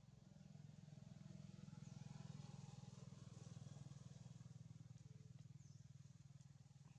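Faint low engine hum with a fast pulse, swelling to its loudest about two seconds in and then easing off, like a distant motor vehicle passing. A few faint high chirps sound over it.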